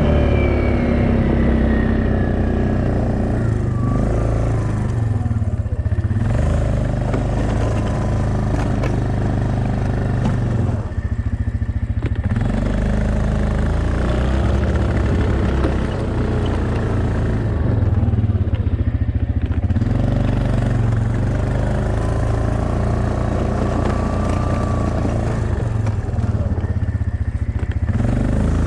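Yamaha Kodiak ATV's single-cylinder engine running under load while plowing snow, its pitch rising and falling several times as it speeds up, slows and reverses direction.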